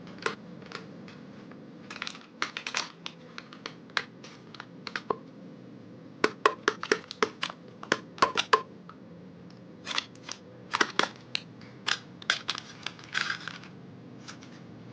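Kitchen clatter: sharp clicks and knocks of utensils and crockery in irregular clusters, over a steady low hum.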